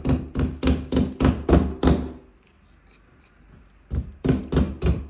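Plastic wall plugs being knocked into drilled holes in plasterboard with the back end of a 12-volt cordless drill: a run of sharp knocks about three a second, a pause of nearly two seconds, then a second run.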